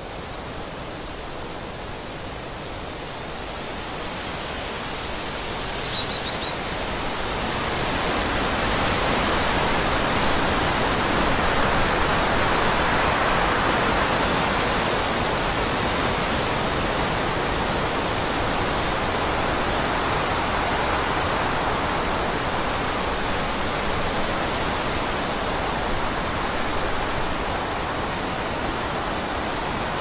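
Forest ambience: a steady rushing noise that swells over the first ten seconds and then holds, with two brief bird chirps about one and six seconds in.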